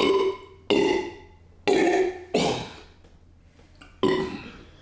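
A string of five loud men's burps, each starting suddenly and trailing off, with a pause of about a second before the last one.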